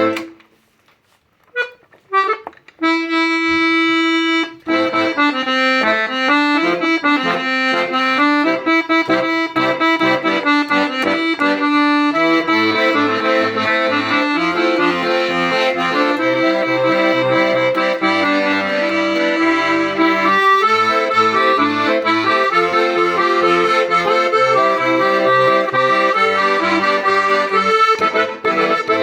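Hohner Arietta piano accordion being played: a few short notes and a held chord, then a flowing melody, joined about twelve seconds in by a steady rhythmic bass-and-chord accompaniment on the left hand.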